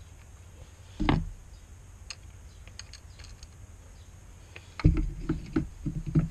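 A synthetic rifle stock being handled and set down on a wooden workbench: one sharp knock about a second in, a few light clicks, then a run of dull knocks and bumps near the end.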